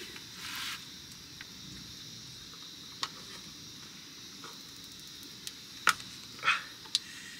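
Insects chirring steadily, with a short rustle near the start and a few sharp clicks and a brief scrape in the second half. The clicks and scrape are a tight plastic screw cap on a carton of vegetable stock being twisted open.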